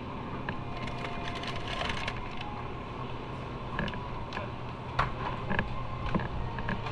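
Motorcycle engine running at a steady low hum, with scattered short clicks and ticks over it, the sharpest about five seconds in.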